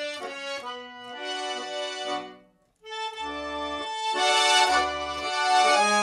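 Russian garmon (button accordion) playing a melody with low bass notes and chords underneath. The sound breaks off briefly about two and a half seconds in, then comes back louder.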